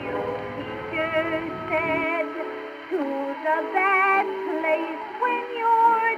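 An old-time song playing: a woman singing with wide vibrato over instrumental accompaniment, with the thin sound of an early recording that has no treble. A low background rumble under it stops about two seconds in.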